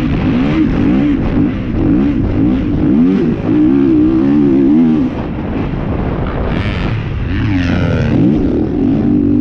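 Kawasaki 450 single-cylinder four-stroke motocross engine under way, its pitch rising and falling repeatedly with the throttle through the turns and down the straight, over steady wind noise on the on-board camera. A higher-pitched engine sweep rises and falls about two-thirds of the way through.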